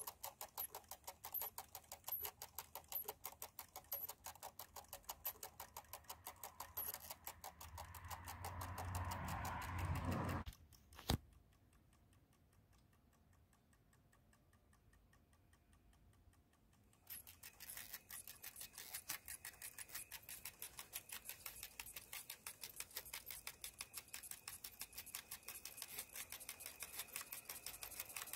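Fast, even mechanical ticking from the clockwork timing mechanism of Hasler Bern chronometric railway speed recorders running. About ten seconds in, a swelling rush and one sharp click come before about six seconds of near silence, and then the ticking starts again.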